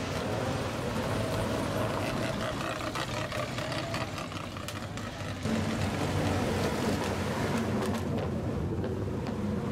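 Lowered first-generation Mazda RX-7 with tall upswept takeyari exhaust pipes, its rotary engine running at low revs as the car creeps past. About halfway through the sound cuts to a louder, deeper-toned engine of another modified old car pulling away slowly.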